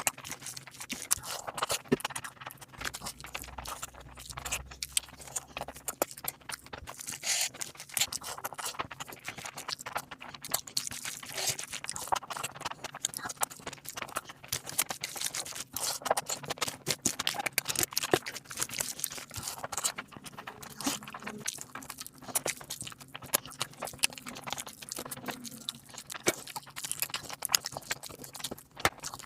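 Close-miked chewing of a mouthful of spicy biryani with egg and gravy, a dense run of small wet clicks and crunches with occasional scrapes.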